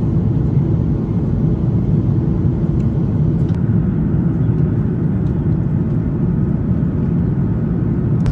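Jet airliner cabin noise in cruise: a steady, loud rumble of engines and airflow heard from inside the cabin at a window seat.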